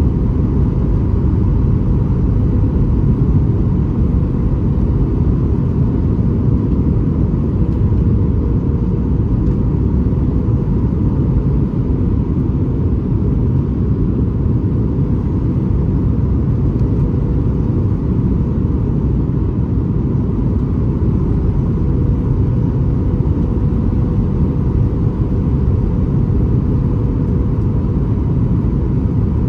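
Cabin noise inside a Boeing 737 MAX 8 in flight: a steady low rumble of airflow and the CFM LEAP-1B engines, with a faint steady hum above it.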